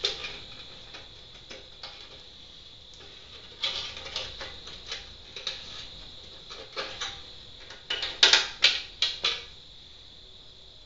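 Light clicks and knocks of a glass pane being fitted into a metal gas grill lid, with a quick run of louder knocks about eight seconds in.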